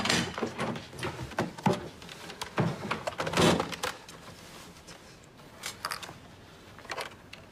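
A door handled and opened, with clicks and knocks and a louder bang about three and a half seconds in as the door is pulled to. Then a few soft clicks of laptop keys.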